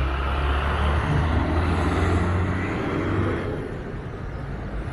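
Street traffic: a motor vehicle passing, its noise swelling and then fading after about three and a half seconds over a steady low rumble.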